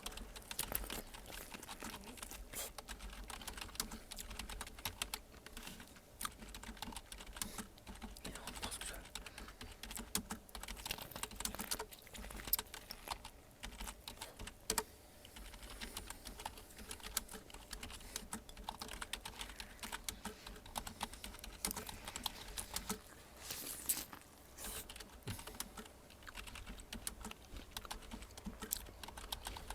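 Typing on a computer keyboard: a dense, continuous run of key clicks with a few louder strikes.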